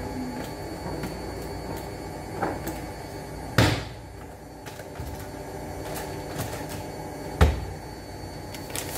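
Overhead kitchen wall cabinet door being opened and shut, with a sharp bang as it closes about three and a half seconds in; another loud knock follows near the end, among small clicks of items being handled.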